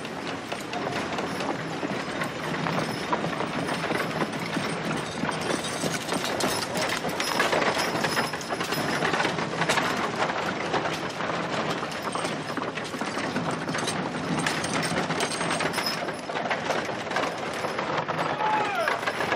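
Old West town street ambience: a busy, continuous mix of clattering knocks and rattles, like hooves and wagons, with a low murmur of activity. It cuts off suddenly at the end.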